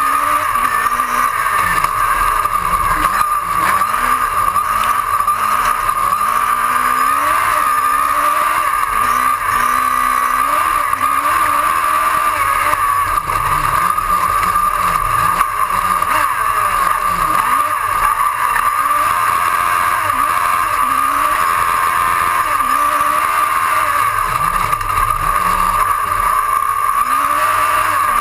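Autocross race car at racing speed on a dirt track, its engine pitch climbing and dropping again and again, under a loud even rush of wind and dirt noise and a constant high hum, heard from the bonnet.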